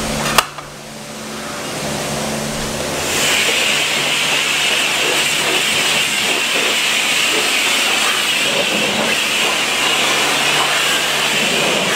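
A sharp click about half a second in, then a self-service car wash's high-pressure wand spraying water onto a car: a steady, loud hiss from about three seconds in.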